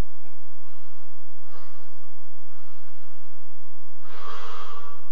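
A man's breathing: a faint breath about a second and a half in, then a loud breath out about four seconds in.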